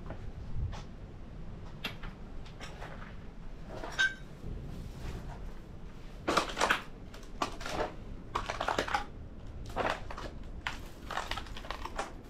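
Irregular crunching and scraping of someone moving over debris, in uneven bursts with short pauses.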